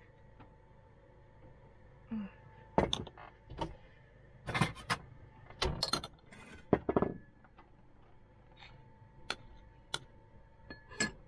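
Irregular clicks and clatters of cookware and kitchen things being handled in a small space, over a faint steady hum.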